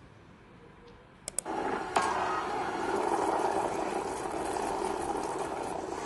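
A steady rushing, hissing noise, used as the sound of a monster's beam attack. It starts with a couple of clicks about a second in and runs for about five seconds.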